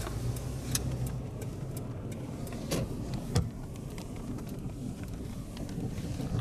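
Car driving slowly, heard from inside the cabin: a steady low engine hum with road noise, and scattered light clicks and knocks.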